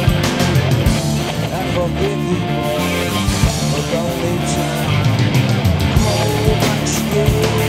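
Background rock music with a steady drum beat and held instrumental notes.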